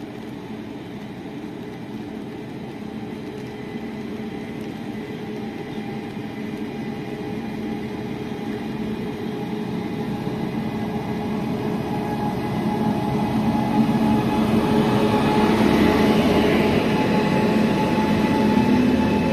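A train approaching at speed, its rumble and steady droning hum growing louder over the first fourteen seconds or so and then staying loud as it draws near.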